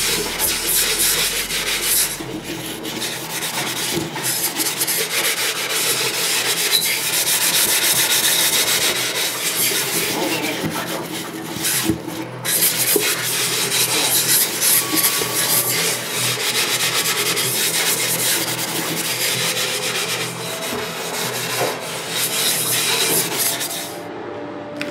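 Steady scrubbing, something being rubbed hard back and forth against a kitchen surface during cleaning, with a few short pauses.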